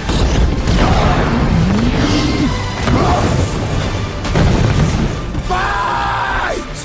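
Animated film soundtrack of a battle scene: orchestral score mixed with loud booms and crashes.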